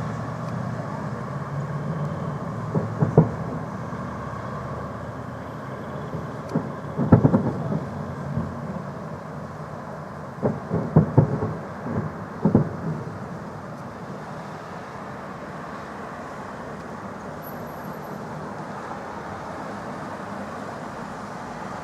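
Firework salute shells bursting overhead as a scattering of sharp booms: a pair about three seconds in, a cluster around seven seconds, a rapid run of several between ten and thirteen seconds, then none. Under them a steady background rumble.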